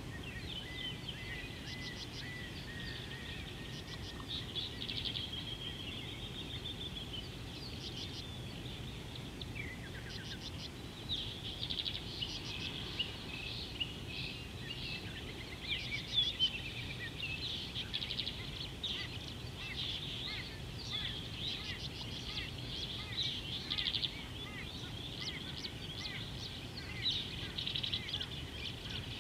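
A chorus of many small birds chirping and trilling, busier in the second half, over a steady low background rumble.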